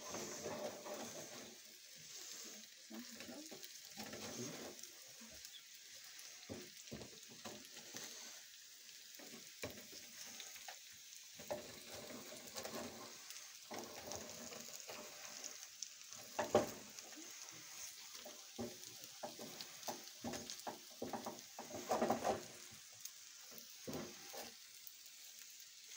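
Pelmeni frying in a pan, sizzling steadily, while a wooden spatula stirs them and scrapes the pan in many short strokes. A few scrapes are louder, the loudest about two-thirds of the way in.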